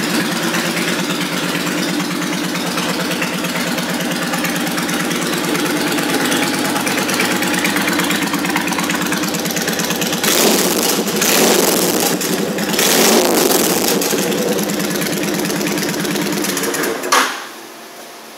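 A 2005 Honda VTX1300C's carbureted V-twin idles steadily through a loud aftermarket exhaust. It is revved twice a little past the middle, then switched off near the end.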